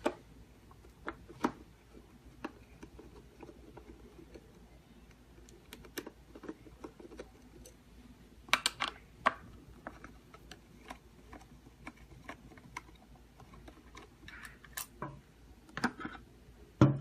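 Scattered sharp clicks and taps from handling a keypad door lock as its back panel is taken off, with a cluster of clicks about halfway through and more near the end.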